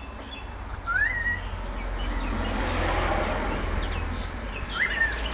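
Short up-slurred bird calls, one about a second in and two close together near the end, over wind buffeting the microphone.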